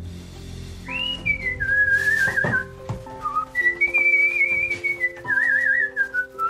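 A whistled tune with trilling, warbling notes, starting about a second in, over light background music chords, with a couple of short knocks in between.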